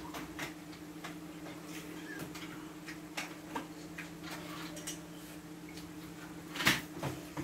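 Metal spoon clinking and scraping against a stainless steel bowl during a meal: scattered small clicks, with one louder clink near the end, over a steady low hum.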